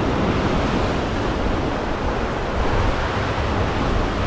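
Heavy surf breaking and washing over a rocky shoreline, a steady loud rush of whitewater, with wind buffeting the microphone.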